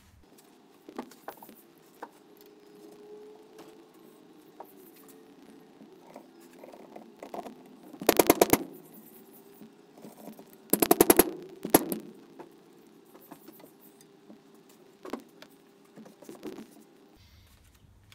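Rubber handlebar grip being forced onto a steel handlebar tube, giving two short bursts of rapid, evenly spaced clicking about a second long each, with a few single handling knocks in between.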